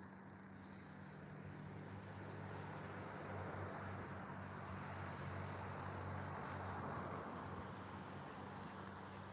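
Small boat's motor running steadily at slow cruising speed, a low hum with a hiss of water over it, growing slightly louder over the first few seconds.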